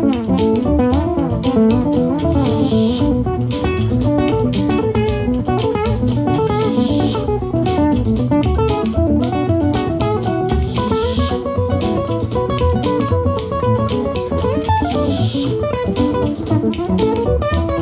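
Live band playing instrumental music led by guitar, with a steady beat and a bright hiss that swells about every four seconds.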